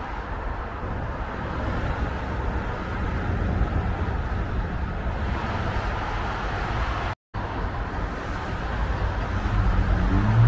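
Steady highway traffic noise: a continuous rush of tyres and engines from cars passing on the road below. The sound cuts out completely for an instant a little after seven seconds, and near the end a low steady engine hum swells up over the traffic.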